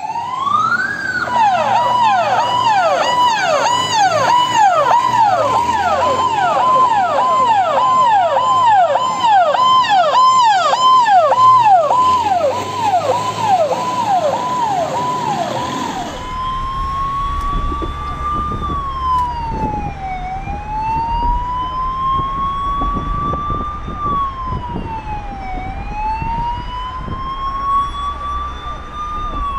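Ambulance siren: a rising wail that breaks into a fast yelp of about two falling sweeps a second. About halfway through it switches to a slow wail that rises and falls every five seconds or so, over traffic noise.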